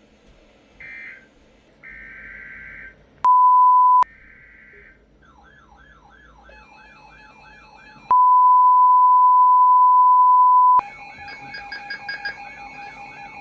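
A NOAA Weather Radio alert coming in for a new warning on several weather radios. There are a few short bursts of SAME digital header tones, then the steady 1050 Hz warning alarm tone, once briefly and then for nearly three seconds. From about five seconds in, a radio's warbling, siren-like alarm sweeps up and down about three times a second, joined near the end by steady beeping tones.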